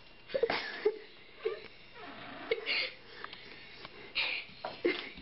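A young child's stifled giggling: about half a dozen short breathy bursts with little squeaks of voice.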